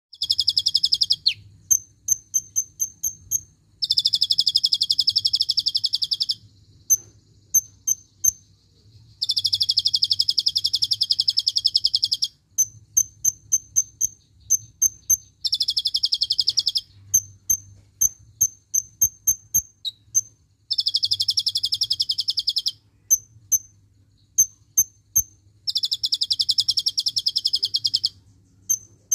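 Caged kolibri ninja sunbird singing: fast buzzy trills lasting two to three seconds each, alternating with runs of sharp, very high, short chips at several a second. Its song is filled with learned cililin-style phrases.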